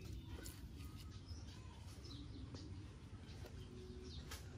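Faint outdoor ambience: birds chirping now and then in the background over a low steady rumble, with a couple of soft clicks.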